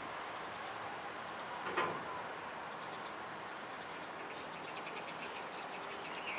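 Steady outdoor city ambience: a constant distant hum of traffic and industry, with birds chirping. A brief sharp sound, the loudest moment, stands out about two seconds in.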